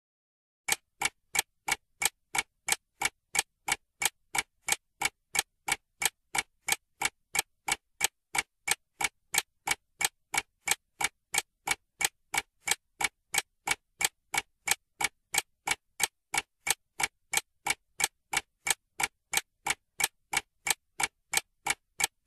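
Clock-ticking sound effect: sharp, evenly spaced ticks at about three a second, starting just under a second in. It is the countdown ticking of a time bomb before it explodes.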